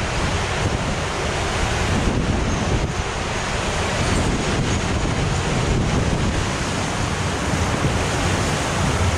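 Steady rush of water and air as a raft slides at speed through an enclosed water-slide tube, with wind buffeting the raft-mounted camera's microphone.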